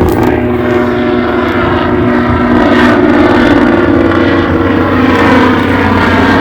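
Helicopter flying close by: a loud, steady rotor and turbine drone with a low rumble underneath.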